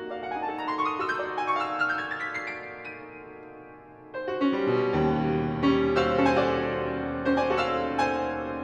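Grand piano played: rising runs of notes that thin out and fade over the first few seconds, then a sudden loud chord with deep bass notes about four seconds in, followed by dense ringing chords and runs.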